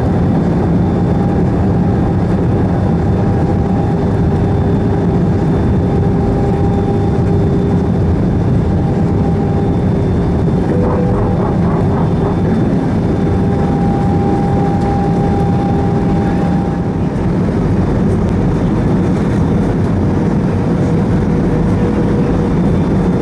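Steady cabin rumble of an Airbus A320 on the ground, heard from inside the cabin, with thin whining tones that come and go; a short pulsing sound about halfway through.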